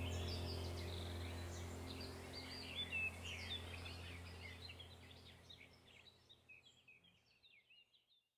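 Small birds chirping and twittering over a steady low hum, with two soft knocks about three seconds in; the whole sound fades out to silence about six seconds in.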